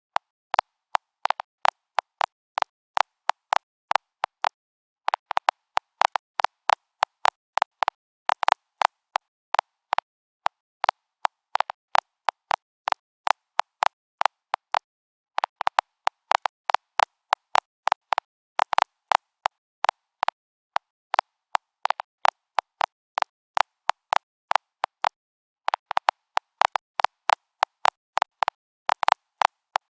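Geiger counter clicking at irregular intervals, a few clicks a second, now and then bunching into quicker runs; each click is a detected radiation count.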